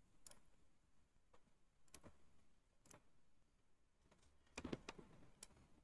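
Near silence: room tone with a few faint, scattered clicks, a small cluster of them a little louder about four and a half seconds in.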